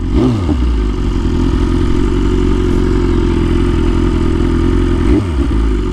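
BMW S1000RR inline-four sport bike engine running at low revs, creeping along at walking pace. Its pitch briefly rises and falls near the start and again about five seconds in.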